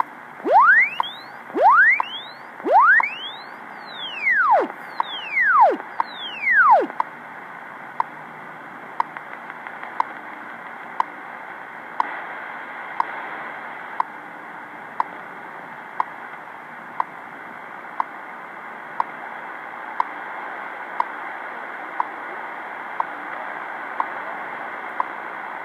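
HamSCI ionospheric test signal received off a WWV shortwave time-signal broadcast: six swept tones in the first seven seconds, three rising and then three falling, each sweeping between low and high pitch. After that comes static hiss with the station's short seconds tick once a second.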